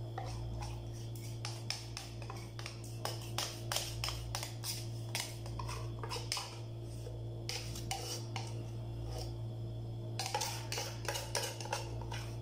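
Rapid irregular clicks and taps of a tin can and utensil while condensed milk is poured from the can into a plastic mixing bowl, coming in two flurries. A steady low hum runs underneath.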